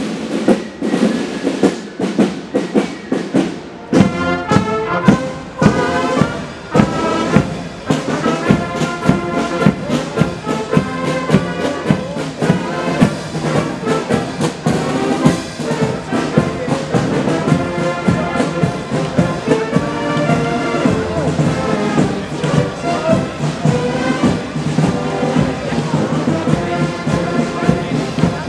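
Marching band playing a march: drum beats alone at first, then the brass (trumpets and tenor horns) comes in about four seconds in over a steady bass-drum and cymbal beat.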